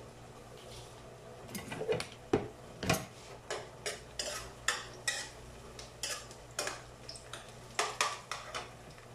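Metal spoon stirring sliced onion and garlic in a nonstick frying pan: irregular scrapes and taps of metal on the pan, starting about a second and a half in, over a steady low hum.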